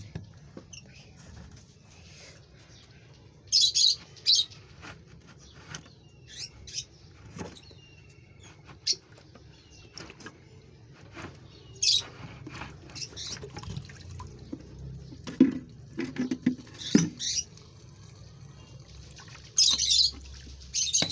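Pet parrots calling in short, loud, high-pitched squawks that come in scattered clusters every few seconds, with fainter chirps and clicks between them.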